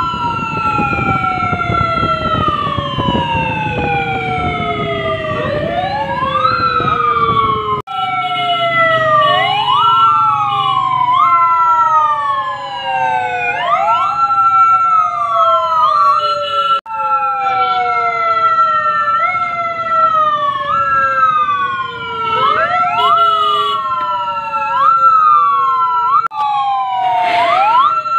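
Several police vehicle sirens sound together. One holds a steady high tone while others wail in repeated quick rises and slow falls, out of step with each other. A low engine rumble runs underneath during the first few seconds.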